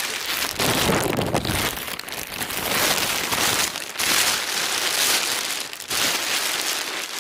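Rain pattering on a plastic bag held close over the microphone, a dense crackling rustle that swells and eases every couple of seconds.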